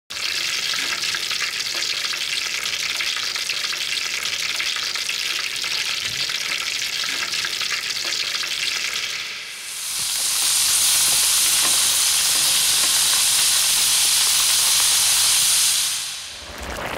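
Chicken pieces deep-frying in hot oil: a steady sizzle that dips briefly about halfway, then comes back louder and sharper before fading out just before the end.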